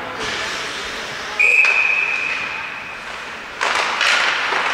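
Ice hockey referee's whistle: one long, steady blast about a second and a half in. Near the end comes a sudden loud scrape and clatter of skates and sticks on the ice as play resumes from a faceoff.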